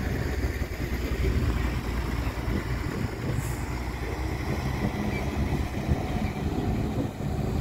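Low, rumbling, irregular noise of wind buffeting the microphone, mixed with the diesel engines of dump trucks running.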